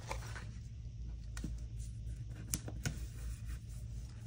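Paper sticker sheets and stickers being handled: a few faint ticks and taps over a steady low hum.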